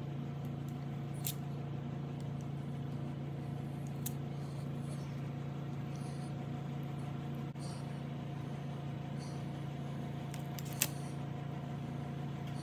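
Steady low hum of a running motor or fan, with a few faint clicks, one sharper near the end.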